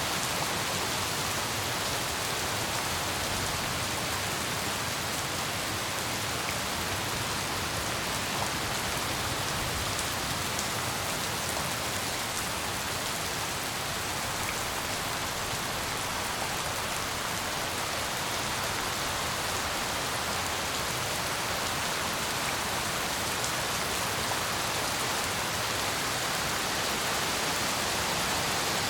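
Steady heavy rain, an even hiss of drops falling on surfaces with no break or change.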